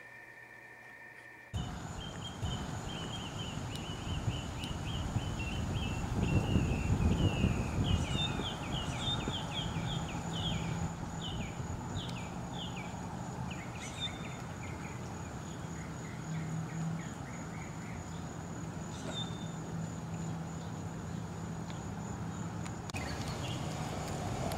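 Outdoor ambience that cuts in abruptly about a second and a half in: a steady high-pitched drone and a long run of quick chirping calls over low background noise.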